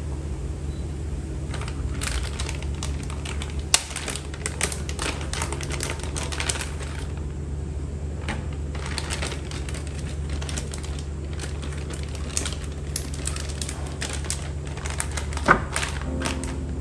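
Vegetables and clear plastic storage containers being handled: a quick, uneven run of light clicks, taps and rustles as chilies, green beans and carrots are laid into a plastic tray, with two sharper knocks, one about four seconds in and one near the end. A steady low hum runs underneath.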